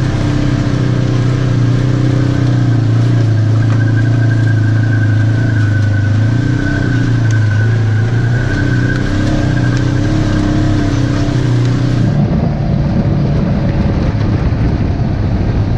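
Polaris RZR side-by-side engine running steadily at a trail pace, its pitch swelling and easing a little, with a thin high whine over it for a few seconds in the middle. About twelve seconds in the sound turns duller and rougher.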